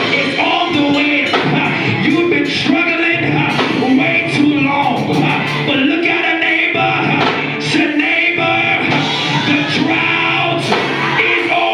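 Loud live gospel music, a praise break, with steady drum and cymbal hits and voices singing and shouting over it.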